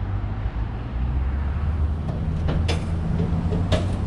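Pickup truck towing a loaded firewood trailer on the road: a steady low engine and road rumble, with two sharp rattles, one shortly before three seconds in and one near the end.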